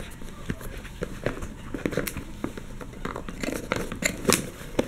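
Cardboard phone box being handled as a layer is lifted out of it: a scatter of small clicks, scrapes and rustles of card and paper.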